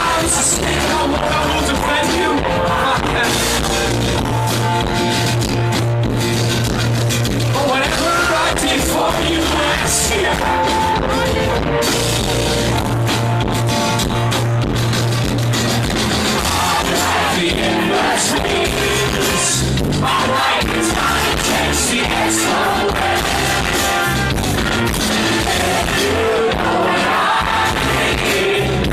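Live rock band playing loudly, with a singer over guitars, bass and drums.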